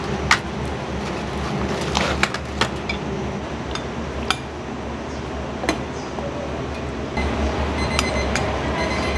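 Kitchen dishware clinking now and then: single sharp knocks of bowls and utensils, over a steady low background hum.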